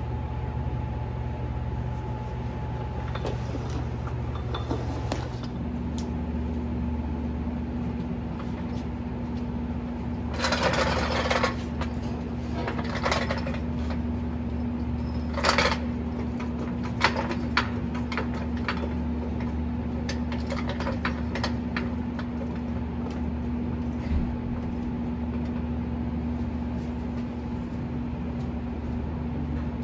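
A steady low mechanical hum whose pitch changes about five seconds in, with a handful of sharp clicks and short rattles near the middle.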